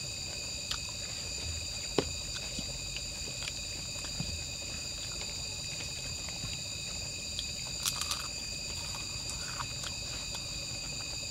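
Crickets trilling steadily at several high pitches, with a few faint clicks and taps: a sharp one about two seconds in and a pair near eight seconds.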